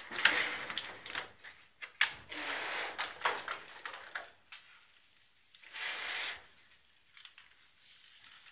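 Packaging being handled during an unboxing: rustling and crinkling with sharp clicks and taps, in several bursts through the first part, then much quieter in the second half.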